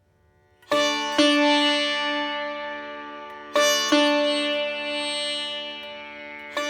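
Background music of a plucked string instrument in an Indian classical style: pairs of notes struck about a second in, again past halfway and at the end, each left to ring and fade over a held low drone.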